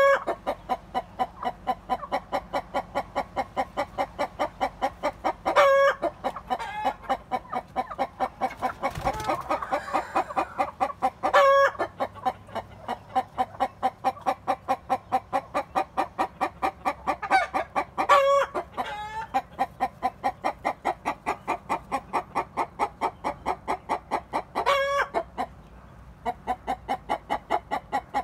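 Laying hen clucking on the nest in a steady, rhythmic run of short clucks, about four a second, broken every six seconds or so by a louder, higher cluck.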